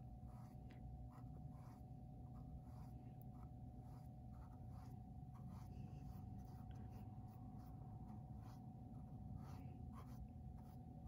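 Faint, irregular scratching of a paintbrush stroking paint onto a canvas, over a steady faint hum.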